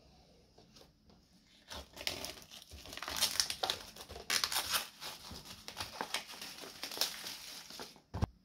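Clear plastic shrink-wrap being torn and peeled off a cardboard product box, a dense crinkling and crackling that starts about two seconds in and runs on for about six seconds, ending with a single short thump.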